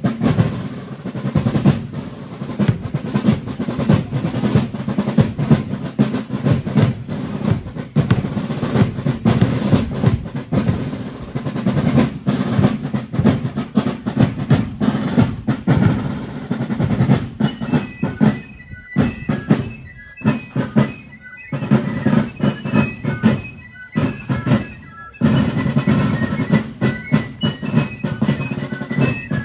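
A fife and drum corps playing on the march: snare drums beating dense rolls and rudiments over bass drum strokes. High fife notes come in over the drums about halfway through.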